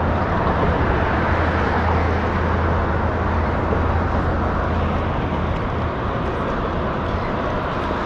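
Steady rumble of road traffic: a low, even hum under a continuous wash of noise, with no single vehicle standing out.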